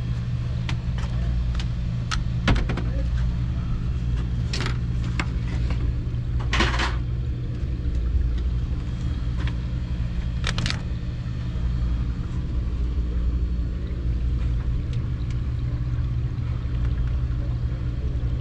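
Steady low mechanical hum, with scattered short clicks and a few brief rustles as gloved hands move through metal-clad cables and debris.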